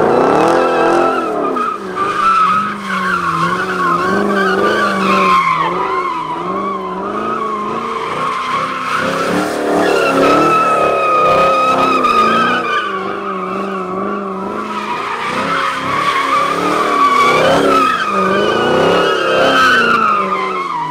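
Chevrolet Camaro doing donuts: the engine is held at high revs, its pitch rising and falling about once a second with the throttle, while the rear tires screech continuously as they spin and slide on damp asphalt.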